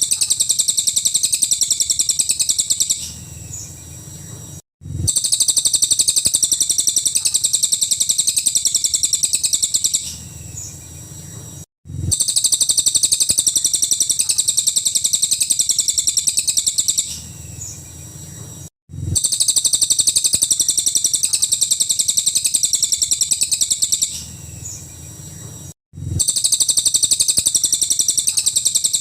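Cililin bird singing its full 'nembak' song: long bursts of very rapid, high-pitched chattering notes, each about three seconds long. Each burst is followed by a few seconds of quieter notes and a brief cut-out, and the pattern repeats about every seven seconds like a looped recording.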